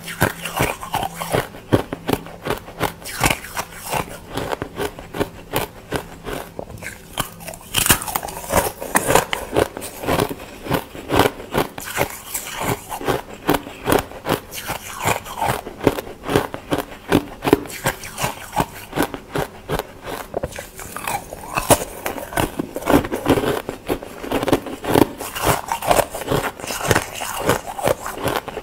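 Ice being bitten and chewed, a dense run of crisp crunches and crackles in quick succession throughout.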